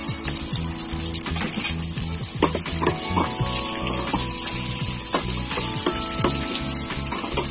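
Garlic, onion and ginger sizzling in hot oil in a stainless steel pot, with a spatula stirring them and knocking against the pot a number of times.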